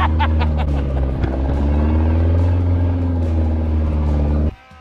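Pickup truck engine running steadily at low speed while towing a sled, heard from the open truck bed, its pitch shifting slightly now and then. A man gives a short shout right at the start, and the engine sound cuts off abruptly near the end.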